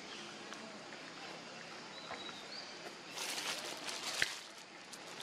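Quiet outdoor ambience with a faint high chirp about two seconds in. Then comes about a second of rustling and crackling, ending in a sharp click.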